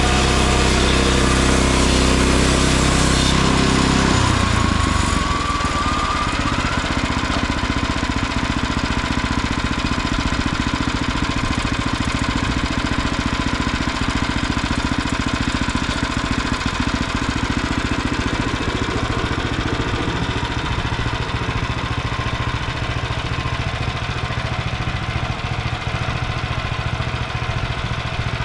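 Small gas engine of a Frontier OS23 bandsaw sawmill running fast, then throttled back about four seconds in and left idling steadily.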